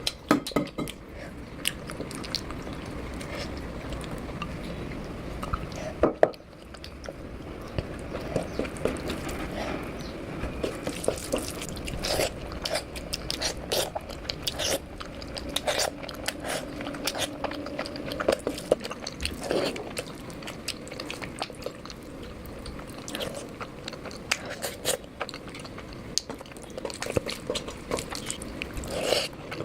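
Close-up eating sounds of a person chewing and biting through fish curry with rice, with many small irregular clicks and crunches throughout.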